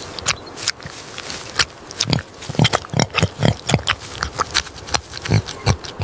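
Domestic pig grunting: a quick series of short, low grunts, coming about twice a second from about two seconds in.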